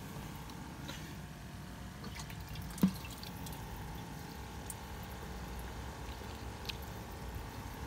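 Water dripping and lightly splashing in a bait bucket of live shiners as a hand dips in to grab one. A faint steady hum runs underneath, and a single knock comes about three seconds in.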